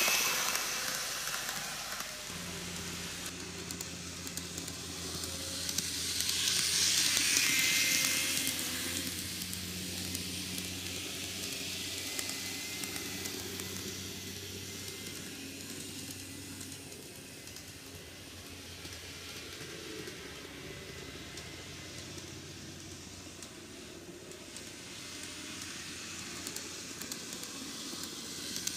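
N-gauge model trains running on plastic-based track: a steady hiss of wheels and motors, loudest at the start and again about seven seconds in as a train goes by close. Under it runs a low steady hum.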